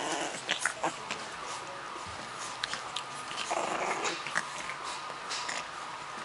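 A litter of French bulldog puppies squirming and vocalizing, with two short noisy outbursts, one at the start and one about three and a half seconds in, and small scrabbling clicks between them.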